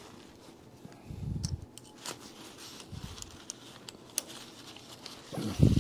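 Hex key fitted into a clamp screw on a lathe tool and turned to loosen it, with a few sharp metal clicks and light scraping. There is a soft low bump about a second in and a louder one near the end.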